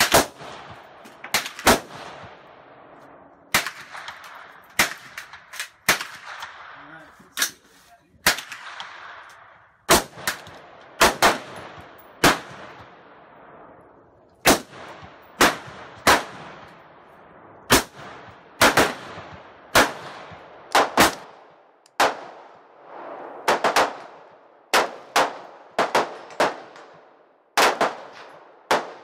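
Rifle fire from scoped black AR-style semi-automatic rifles: dozens of sharp shots at irregular spacing, some in quick pairs, each followed by a ringing echo off the range's roof.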